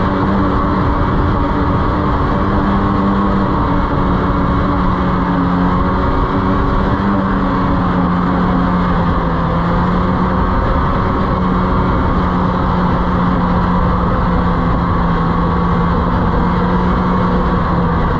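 Snowmobile engine running at a steady speed while riding: an even, held drone over a constant rumble.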